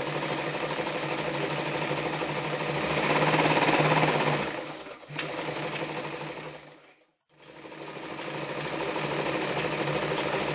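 Winfield FW 161 electric sewing machine running a straight stitch through two layers of denim, then through four layers of denim. It runs steadily, louder for a stretch in the middle, with a short slowdown and one brief stop before it starts again.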